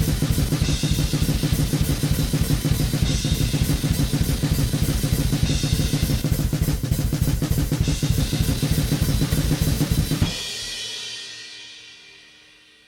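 Recorded drum kit playing fast, with rapid steady bass-drum strokes under cymbal crashes about every two and a half seconds. It is heard through a single wall-mounted room mic squeezed by a Lindell Audio 7x-500 FET compressor, an 1176-style unit. The playing stops suddenly about ten seconds in and the last hit rings out and fades away.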